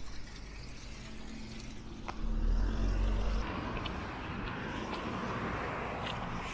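A motor vehicle passing on the road: a low engine rumble swells about two seconds in, then gives way to a hiss of tyre noise that slowly fades.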